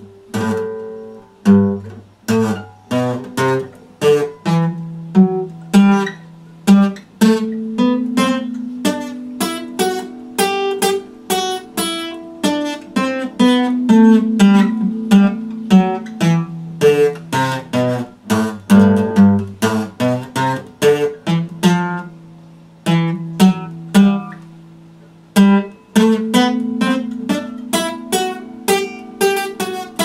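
Epiphone steel-string acoustic guitar played solo, a steady run of strummed chords and picked notes that ring on between strokes.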